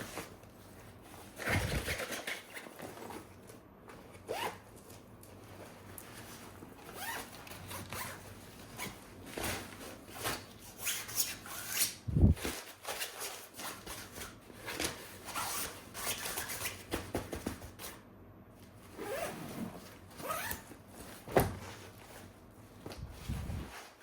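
Plastic toy guns and their packaging being handled: a string of clicks, knocks and quick scraping or rustling strokes, with sharper knocks about halfway through and again near the end.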